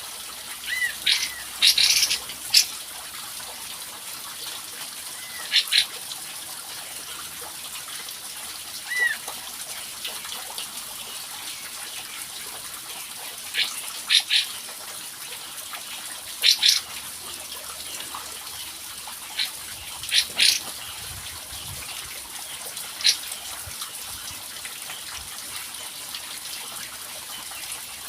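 Kapas tembak songbird calls played as a lure: short, sharp chirps and brief whistled notes, singly and in pairs at irregular gaps, over a steady hiss like running water.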